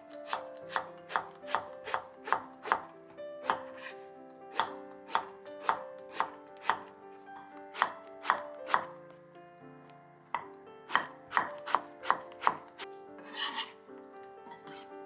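Kitchen knife chopping on a cutting board in runs of steady strokes, about two to three a second, with two short pauses and a brief scrape near the end.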